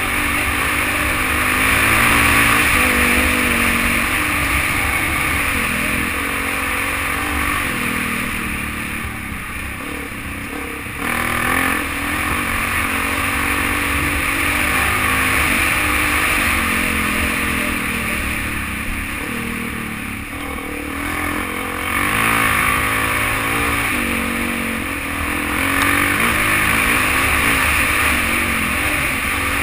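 Dirt bike engine running under way, its pitch rising and falling with the throttle and easing off twice before pulling again, over steady wind and road noise on the microphone.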